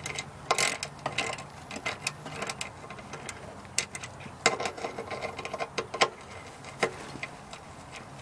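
Hand ratchet clicking irregularly as a bolt is backed out, with short runs of ticks and a few sharper metal clinks. The bolt is loose enough that the ratchet barely holds and slips back over.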